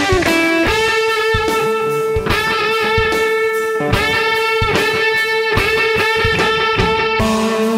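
Instrumental passage of a rock song: electric guitar holding one long note from about a second in, then changing pitch near the end, over a steady beat of percussive hits.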